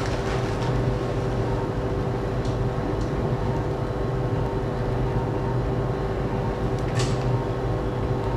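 Steady hum of operating-room equipment during arthroscopic shoulder surgery, with two constant tones over a low rumble and a few faint clicks of instruments, the loudest about seven seconds in.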